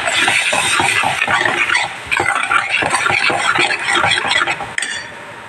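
Metal spoon stirring and scraping tomato purée frying in a stainless steel pan, in quick irregular strokes; the stirring stops about five seconds in.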